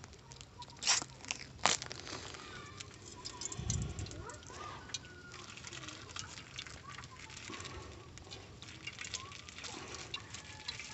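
Light crackling and crinkling as cooking oil is poured from a plastic bag into a hot frying pan over a wood fire. There are two sharp clicks about a second in and a dull knock near four seconds.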